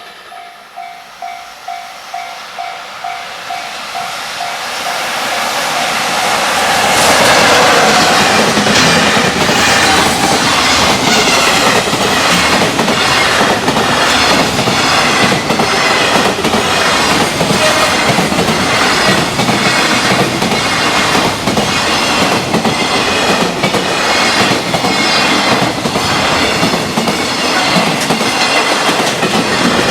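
A level-crossing warning bell rings in a rapid, even repeated ding. About six seconds in, a freight train arrives and passes at speed. Its wheels clatter over the rail joints in a steady rhythm of about one clack a second as the wagons run by.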